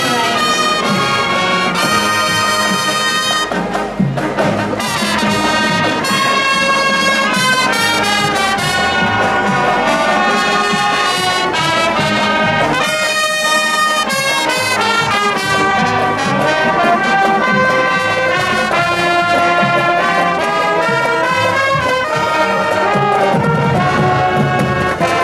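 Live marching band playing a tune on brass and saxophones, loud and continuous, with many instruments sounding together in harmony.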